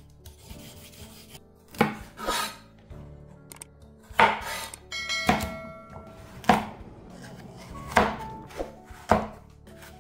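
Vegetable peeler scraping along a carrot at first, then a santoku knife cutting through carrot onto a wooden cutting board: about seven separate knocks of the blade on the board, roughly a second apart. Soft background music plays throughout.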